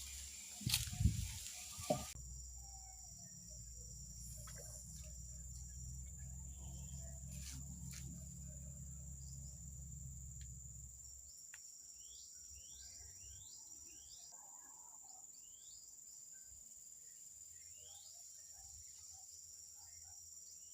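A steady, high-pitched insect drone, with a few knocks near the start, a low rumble that fades out about halfway through, and a run of short falling chirps a little after that.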